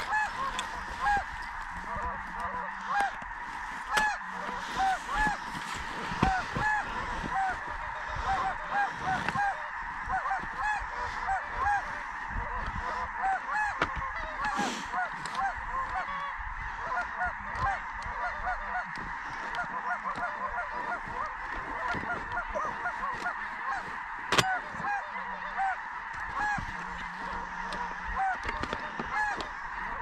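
A large flock of geese calling without a break, a dense chorus of many overlapping honks. A single sharp tap cuts through about three-quarters of the way in.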